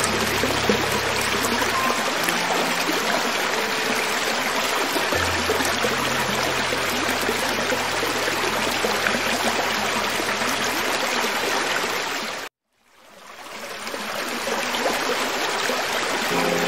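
Creek water running steadily over rocks, an even rushing, with low held music notes beneath it at times. About three-quarters of the way through, the sound cuts out abruptly and fades back in over a second or two.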